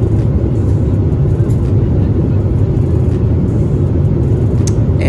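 Steady low roar of a Boeing 777-300ER cabin in cruise, the airliner's engine and airflow noise heard from an economy seat. A faint tick comes near the end.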